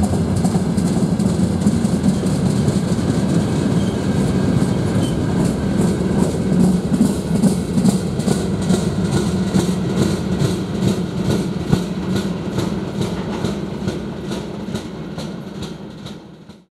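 Freight train of open gondola wagons rolling past: a steady rumble of wheels on rail with a fast, regular clickety-clack. The sound fades away in the last couple of seconds.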